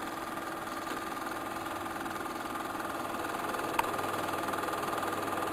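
Steady, fast mechanical clatter of a film projector running, with one sharp click a little past the middle.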